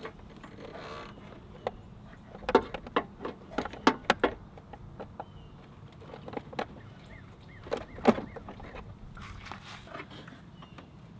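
Needle-nose pliers clicking and knocking against the rubber spark plug boot and surrounding plastic of a Vespa LX engine while the boot cap is worked loose. A burst of sharp clicks and taps comes about two to four seconds in, then a single loud click about eight seconds in.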